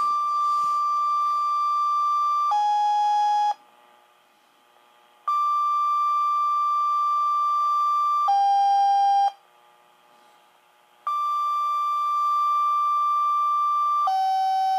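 Motorola Minitor V fire pager sounding two-tone sequential alert tones: three times, a steady high tone for about three seconds steps down to a lower tone for about a second, with short quiet gaps between. These are dispatch tone-outs that activate the pager ahead of a fire call announcement.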